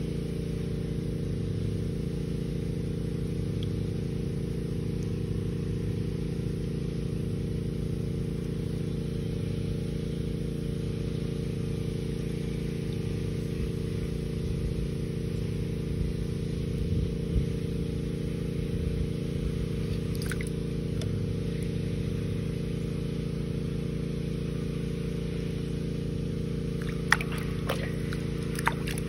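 Steady low drone of a running engine, even and unchanging in pitch, with a few sharp knocks near the end.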